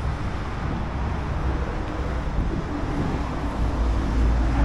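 Steady outdoor road-traffic rumble with wind on the microphone.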